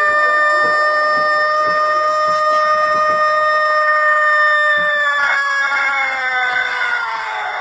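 Rooster crowing one very long, drawn-out crow at a steady pitch. About five seconds in, the pitch drops and the call turns rougher as it fades away near the end.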